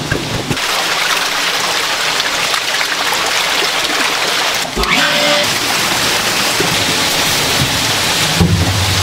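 Water splashing and rushing in a tank of live farmed eels: a steady hiss. A low steady hum joins near the end.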